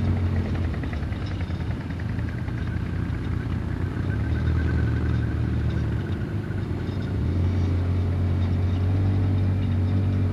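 Quad bike's engine running under way, heard from the rider's seat: a steady low engine note that dips briefly about six seconds in, then picks up and holds steady.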